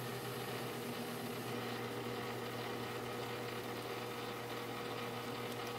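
Small metal lathe running at a steady speed, its motor and spindle giving an even hum.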